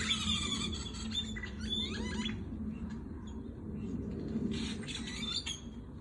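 A flock of birds chirping, many short overlapping calls, thick for the first two seconds, thinner in the middle and picking up again near the end, over a steady low rumble.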